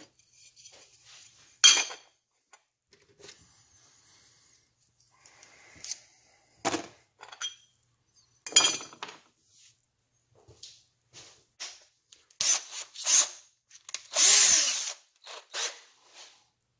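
Handheld power drill run in several short bursts, the longest and loudest about a second long near the end and winding down as it stops.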